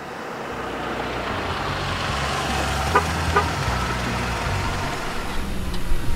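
A passenger car, a Ford Focus sedan, driving slowly toward the listener: low engine running and tyre noise on asphalt that grow steadily louder as it approaches. Two short sharp ticks about three seconds in.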